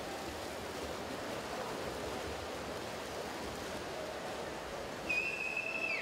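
Steady rushing splash of swimmers doing front crawl in an indoor pool. About five seconds in, a high whistle sounds for about a second, its pitch dropping as it ends.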